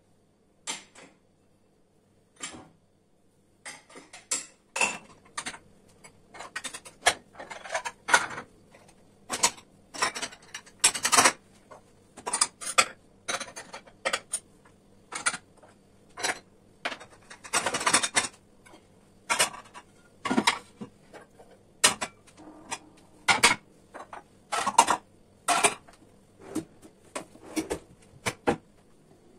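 Dishes and cutlery being handled, an irregular string of sharp clinks and knocks that thickens a few seconds in.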